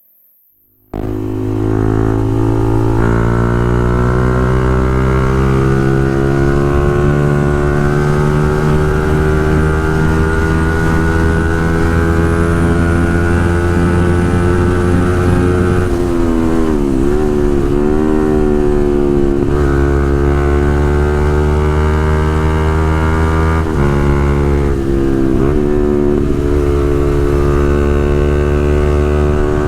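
Motorcycle engine with a Pro Liner aftermarket full-system exhaust, running at steady revs while riding. It cuts in abruptly about a second in, and the exhaust note dips and recovers briefly around the middle and again later on.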